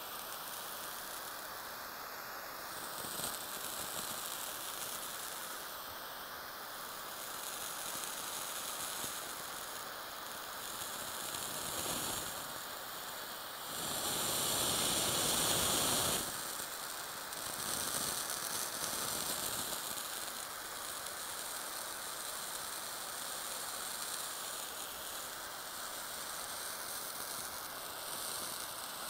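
Tiny blowtorch hissing steadily as its flame plays on a wedge of blue cheese. The hiss grows louder for about two seconds around the middle, when the flame is brought in close to the cheese.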